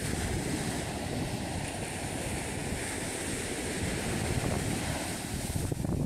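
Surf breaking and washing up a sandy beach in a steady wash, with wind rumbling on the microphone.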